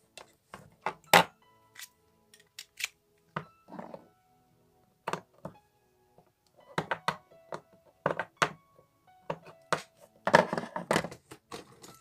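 Diagonal side cutters snipping the excess leads of a newly soldered amplifier IC on a circuit board: a series of sharp, irregularly spaced clicks and snaps, with a denser run of them near the end.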